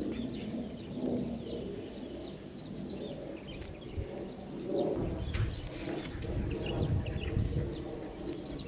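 Small birds chirping over and over in the background with a dove cooing, over low rustling handling noise that is strongest in the second half.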